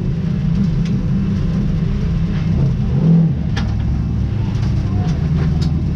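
A motor vehicle's engine running at low revs as the vehicle moves, rising briefly about three seconds in.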